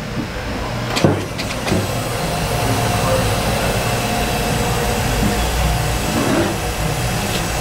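Steady background hum of shop machinery, with a single sharp knock about a second in.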